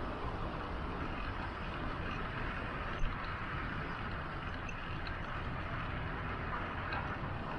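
Steady wind rumble on the microphone and tyre-on-road noise from a bicycle riding along city streets, with one short knock about three seconds in.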